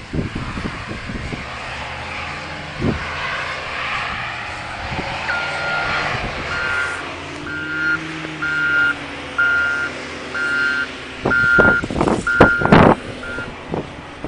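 A reversing vehicle's backup alarm beeping at a steady pace, roughly a beep every 0.8 seconds, from about five seconds in to near the end, over a running engine. Several loud knocks come near the end.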